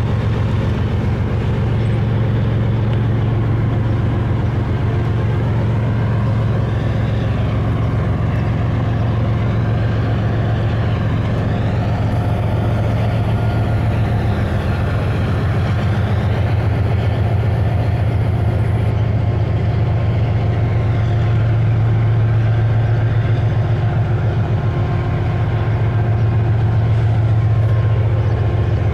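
Diesel-electric freight locomotive engines running with a steady, loud low drone and fast throb, close by.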